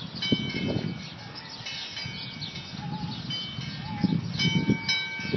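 Hanging metal wind chimes ringing: several clear tones that are struck afresh near the start, about two seconds in and again near the end, and ring on between strikes.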